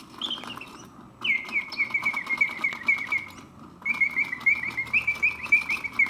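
Early-1970s Karl Griesbaum double singing bird cage automaton singing: its bellows-blown whistle makes rapid warbling trills in two long phrases with a short break about halfway through. Faint, quick mechanical clicking from the clockwork movement runs underneath.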